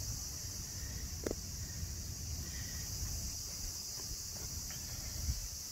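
Insects singing in a steady, unbroken high chorus, with a low rumble underneath and a faint tick or two.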